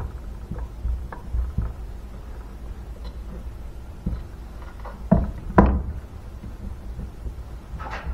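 Irregular knocks and clunks from handling the metal casing of a Simson Schwalbe moped engine and its side cover on the workbench. The loudest come a little after halfway.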